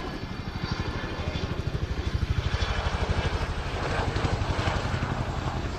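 Boeing Chinook HC2 helicopter's tandem rotors beating in a fast, steady thud of blade passes, growing louder as it flies in close.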